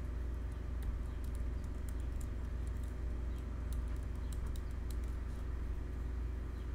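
Computer keyboard typing: irregular, scattered key clicks as a line of code is typed, over a steady low hum.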